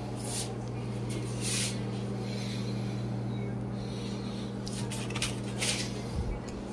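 A steady low hum, with a few soft rustles and knocks.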